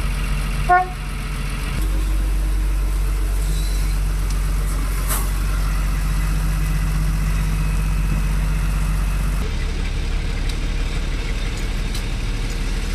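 Motor vehicle engines running steadily. A brief, loud, pitched sound comes under a second in, and there is a single sharp click about five seconds in.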